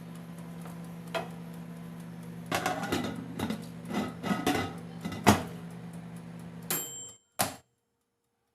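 Steady low electrical hum with a run of clattering knocks and clicks from kitchen equipment being handled, ending in a clunk and a brief high tone before the sound cuts off abruptly.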